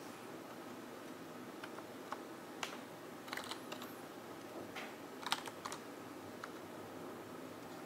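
Computer keyboard being typed on slowly, a dozen or so separate key clicks coming singly and in short clusters, over a steady faint room hiss.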